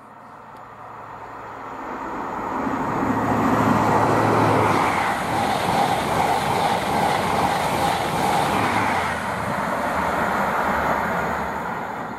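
Peppercorn A1 Pacific steam locomotive 60163 'Tornado' and its train passing close at about 85 mph, with its safety valves feathering. The rush of the train rises over the first few seconds, stays loud as the locomotive and coaches go by, then fades near the end.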